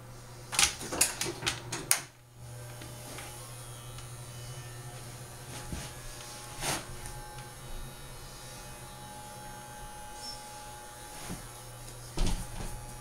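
Electric dog grooming clippers running with a steady hum while being worked over a dog's coat. A cluster of sharp clicks and knocks comes in the first two seconds, the hum cuts out briefly and starts again, and there are further knocks about seven seconds in and near the end.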